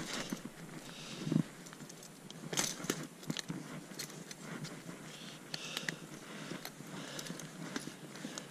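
Steel body-grip trap being handled and set with gloved hands: scattered metal clinks and rattles, a few sharper clacks, and rustling of dry reeds and snow.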